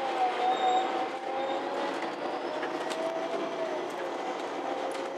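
MAN Lion's City G articulated city bus under way, heard from inside: a running whine that wavers up and down in pitch over a noisy bed, with small clicks and rattles.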